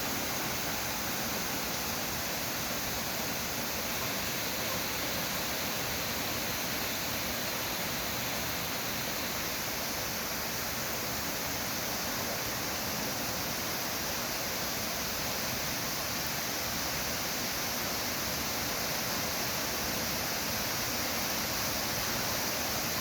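Heavy typhoon rain pouring down in a dense, even hiss that holds steady throughout.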